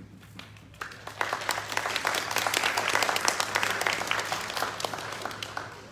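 Audience applauding, many people clapping together; it starts about a second in, swells, then dies away near the end.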